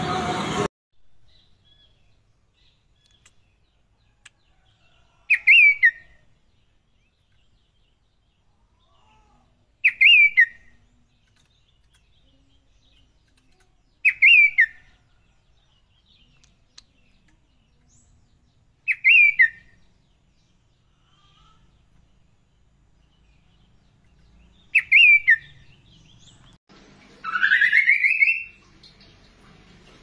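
Caged tepus glagah (kaso-kaso) songbird giving a short whistled call that rises and drops back, five times at intervals of about four to five seconds. Near the end comes one longer whistle that rises steadily.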